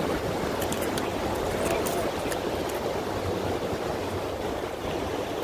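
Steady rushing noise of wind and water washing against the jetty rocks, with a few faint clicks in the first couple of seconds.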